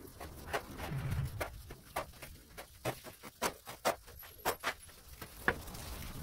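Steel shovel digging into and scraping through a pile of crumbly sand-cement screed mix. It makes a quick, uneven run of short gritty scrapes and knocks.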